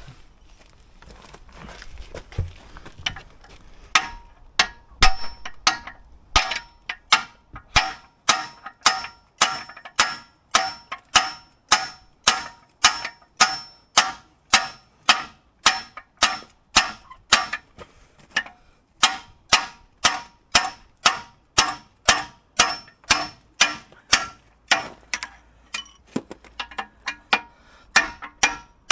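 Repeated hammer blows on a steel pivot pin of a mini excavator's digging arm, driving the pin out. The steady strikes come a little over once a second, each with a metallic ring, and begin about four seconds in.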